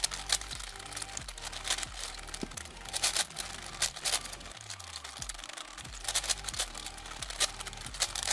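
Rapid, irregular plastic clicking and clacking of a large many-layered Rubik's-style cube being turned fast by hand, over faint background music.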